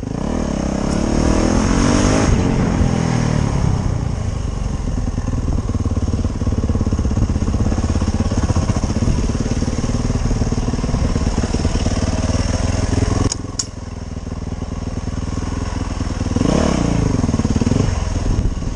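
Motorcycle engine running under way with wind noise. Its pitch rises and falls with the revs near the start and again toward the end, and the sound drops briefly about two-thirds of the way in.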